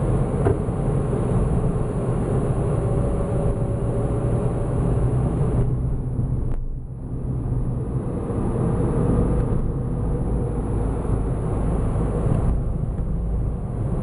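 A Toyota car's engine and road noise heard from inside the cabin while driving. It is a steady, low rumble that dips briefly about halfway through.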